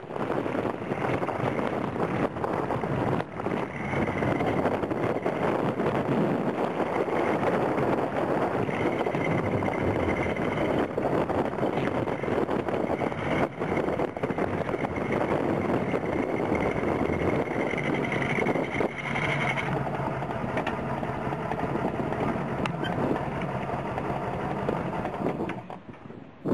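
Road and wind noise of a moving vehicle: a steady rush with a faint high whine through the middle, dropping off sharply near the end.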